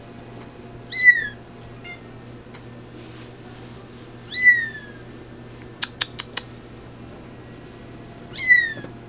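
Young Bengal kitten mewing: three short, high-pitched mews a few seconds apart, each falling slightly in pitch. A quick run of four sharp clicks comes between the second and third mew.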